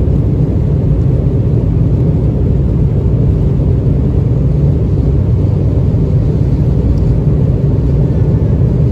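Jet airliner's engines at takeoff power, heard inside the cabin during the takeoff roll: a loud, steady, deep rumble.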